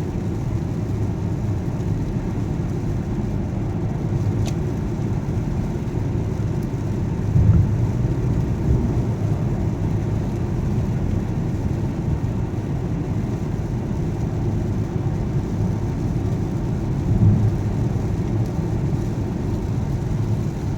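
Car interior noise while driving: a steady low rumble of engine and tyres on the road, swelling briefly twice, about seven and seventeen seconds in.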